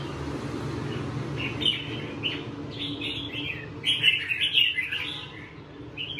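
Caged red-whiskered bulbuls singing: bursts of quick, chirpy phrases beginning about a second and a half in, loudest around four seconds in, then tailing off.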